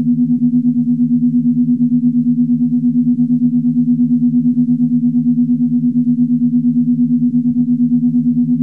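Star Trek: The Original Series USS Enterprise corridor ambience: a steady, low electronic hum with a fast, even pulse, unchanging throughout.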